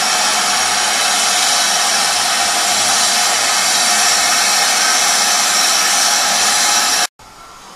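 BR Standard Class 5 steam locomotive 73050 standing and letting off steam: a loud, steady, even hiss that cuts off suddenly near the end.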